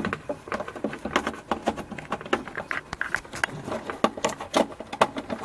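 Rapid, irregular clicks, knocks and rattling from handling a mains power cord as its plug is moved from one benchtop multimeter to the one below it.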